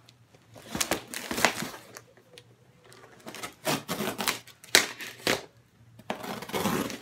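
A cardboard shipping parcel being handled: irregular taps, clicks and scraping rustles in short clusters.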